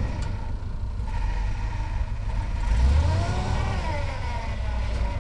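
1977 Ford F-250 pickup's engine running at crawling speed as the truck works over a rock ledge, with a low steady rumble; about halfway through it revs up and falls back once.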